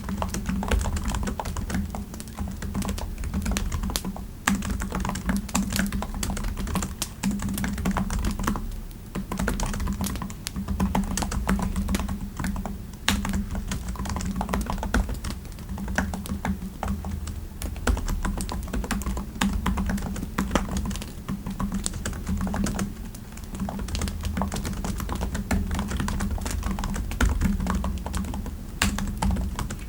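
Typing on a computer keyboard: quick, irregular keystrokes with a couple of short pauses, over a steady low rumble.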